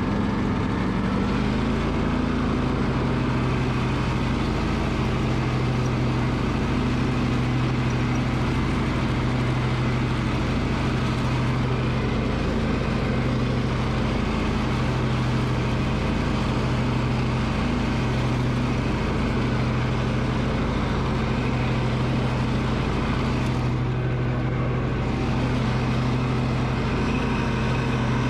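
Freshly rebuilt Kohler Command CH23 23 hp air-cooled V-twin engine on a Cub Cadet riding mower running steadily on its first start after the rebuild. Its note rises slightly about a second in, then holds steady.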